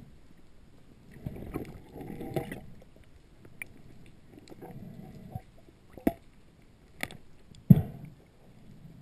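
Muffled underwater water movement heard through a GoPro's sealed housing, in low swells, broken by a few sharp clicks and knocks in the second half, the loudest near the end.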